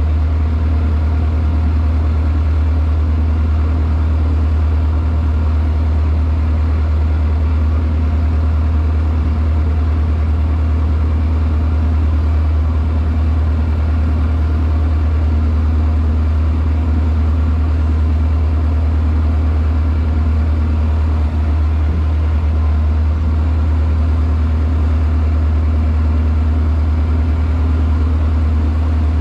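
Heavy machine engine idling steadily at one constant speed, a loud low hum.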